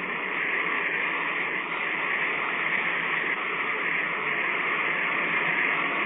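Sound effect of a steam locomotive running and being brought to a stop: a steady hissing rumble that grows slightly louder.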